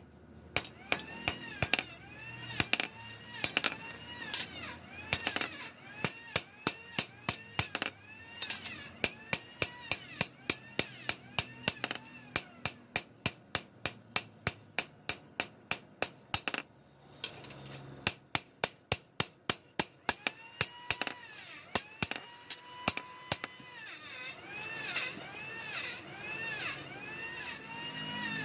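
A long run of sharp, evenly spaced tool strikes, about three a second, pausing briefly a little after halfway: hand-tool work on the blade.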